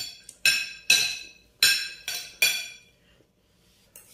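Metal chopsticks clinking against a ceramic bowl while picking up noodles: about five sharp, ringing clinks over the first two and a half seconds.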